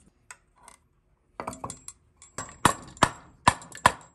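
Rubber mallet tapping the aluminium crankcase halves of a two-stroke motorized-bike engine together, a run of sharp, evenly spaced knocks about two or three a second starting past the middle, after a few light clinks of the parts being handled.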